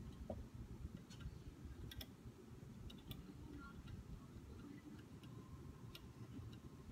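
Faint, irregular small clicks and taps of metal bow parts and a hand tool being handled while a clicker is screwed onto a recurve riser.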